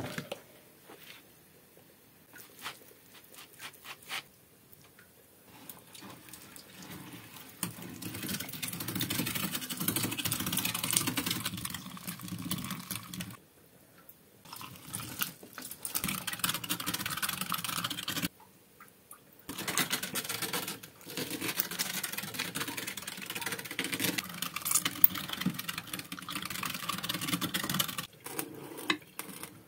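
A few clicks and knocks of a plastic bowl and cutting board being handled, then a manual metal meat grinder mincing raw meat: a continuous clattering grind of the crank and auger, broken twice by short pauses while more meat is pushed into the hopper.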